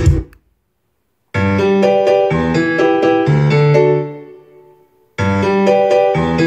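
Recorded electric-piano music played back loud through hi-fi speakers driven by a small SMSL SA-50Plus digital amplifier. A guitar track cuts off right at the start; after about a second of silence a piano piece begins, fades out about four seconds in, then starts over from the beginning about five seconds in, as tracks are skipped.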